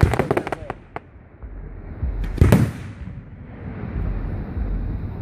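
Aerial fireworks bursting close overhead: a rapid crackle at the start, a single sharp pop about a second in, then one loud boom about two and a half seconds in that rumbles on after it.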